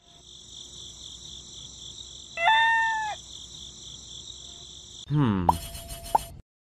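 Steady high-pitched cricket chirping, with a short, loud animal call about two and a half seconds in. Near the end the chirping stops and a cartoon sound effect plays: a falling sweep followed by two quick pops, then it cuts off.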